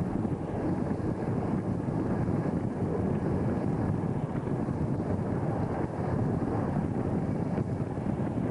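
Steady rush of wind over the microphone held out of the cab window of a PKP SP32 diesel locomotive at speed, with the locomotive's running noise and the wheels on the rails as a continuous rumble underneath.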